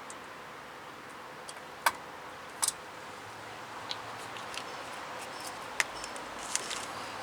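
Scattered sharp clicks and light taps of tools and brake parts being handled during rear brake caliper work. The loudest click comes about two seconds in, a quick double tap follows shortly after, then smaller ticks.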